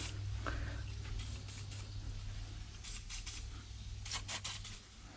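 Brief scraping and rustling noises, a few short bursts, over a steady low hum.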